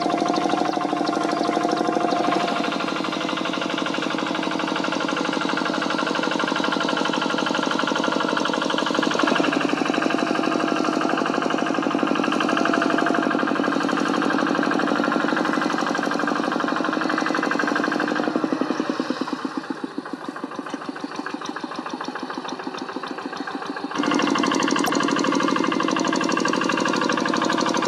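Kubota single-cylinder diesel engine of a two-wheel hand tractor running steadily with a fast knocking beat. It drops quieter for several seconds about two-thirds of the way through, then comes back up.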